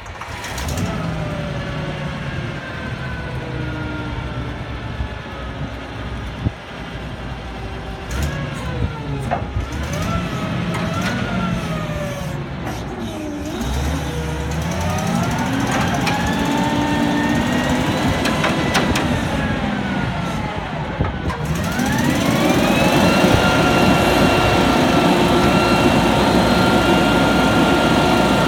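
1972 LOED 552 forklift's 318 V8 gas engine running, its pitch falling and rising several times as the machine is driven and throttled. About 22 seconds in it revs up and holds a steady high pitch while the boom is raised.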